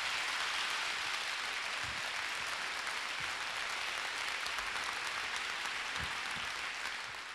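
Audience applauding: a dense, steady wash of clapping.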